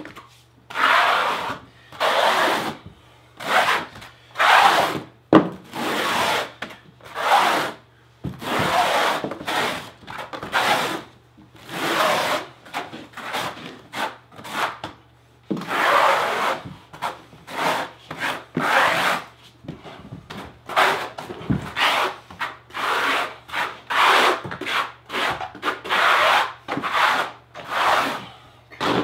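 Steel square-notch trowel scraping and combing thin-set mortar across a plywood subfloor in repeated strokes, about one a second with short pauses.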